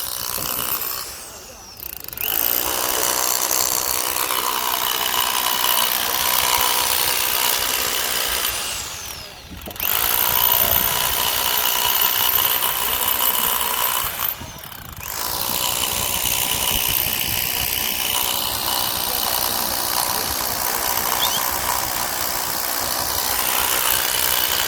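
Road-construction machinery running: a loud, steady engine-and-tool noise that drops away briefly three times.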